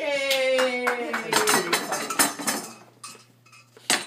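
Metal pot being banged about on a wooden floor by a small child: irregular metallic clanks and clatters. A drawn-out vocal sound falls in pitch over the first couple of seconds, and the clanking thins out near the end before one more sharp clank.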